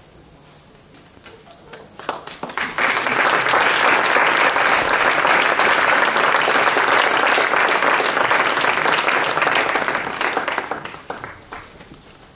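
Audience applauding. It starts as a few scattered claps about two seconds in, quickly swells into full, steady applause, and thins out and dies away near the end.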